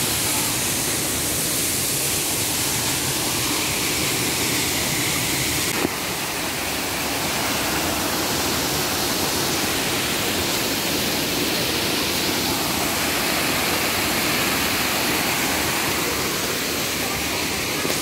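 Waterfall: a steady, even rush of water pouring over rocks.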